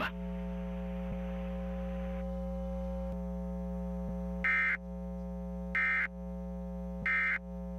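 Emergency Alert System end-of-message data tones: three short, high, warbling digital bursts about a second and a bit apart, closing the test broadcast. A steady electrical buzz hums underneath.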